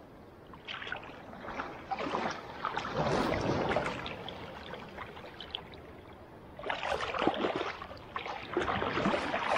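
Shallow seawater splashing and sloshing in three bursts over a quieter wash, as a large stingray's body and wings break the surface at the water's edge.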